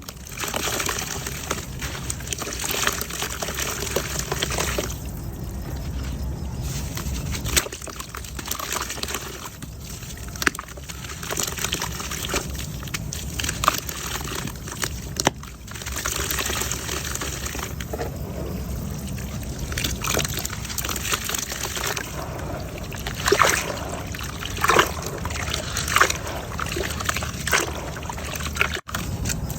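Wet mud crumbling and dropping into water: a steady trickling, sloshing wash full of small crackles and pops, with sharper pops clustered near the end.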